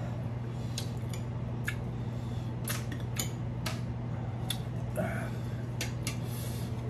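Metal fork and spoon clinking and scraping against a ceramic plate while eating, a scattering of short clicks about once or twice a second. A steady low hum runs underneath.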